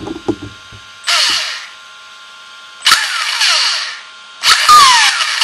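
Brushless RC truck motor, a 6000kv 5.5T fed by a 120 A Hobbywing ESC, given three short throttle bursts: each a high whir of motor and drivetrain that winds down with a falling whine. A few light knocks come just before the first burst. It is the first test run of the newly installed motor.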